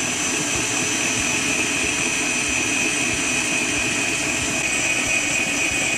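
Electric stand mixer running steadily with a high whine, its whisk beating egg whites into a meringue while hot pineapple syrup is poured in.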